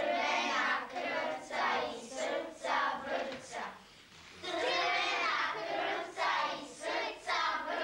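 A group of children singing together in unison, in short phrases with a longer held stretch about halfway through.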